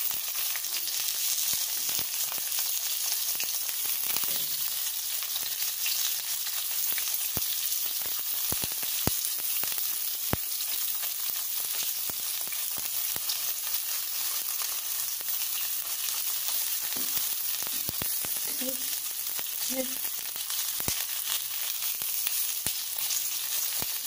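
Pieces of tofu sizzling steadily in a little hot oil in a pan, with scattered sharp crackles and pops of spattering oil. The tofu has already been fried once and is being fried a second time.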